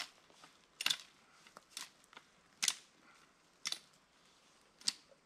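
Small dead twigs cracking as they are snapped off a dry dead branch to clean it up: about six sharp cracks, roughly one a second.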